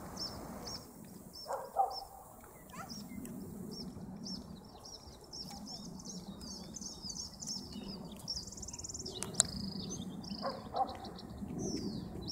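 Small birds singing, a steady stream of quick high chirps and twitters, with a couple of short, lower calls about two seconds in and near the end.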